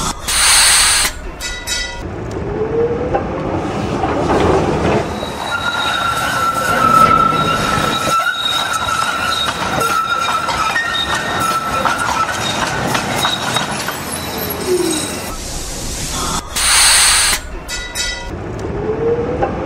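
Electric tram running on rails: its motor whine falls, then a short burst of hiss and a brief ringing tone, then the whine rises again as it pulls away. In the middle a long, steady wheel squeal comes from the tram rounding a curve. The same stop-and-go pattern comes again near the end.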